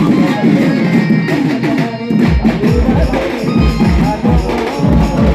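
Sambalpuri band music with drums and percussion under a melody line. The deep drum beats drop out for the first two seconds, then come back in a steady rhythm of about two a second.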